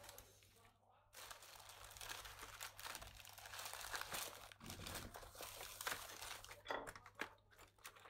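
Crinkly rustling of material being handled, with many small clicks and crackles. It starts about a second in.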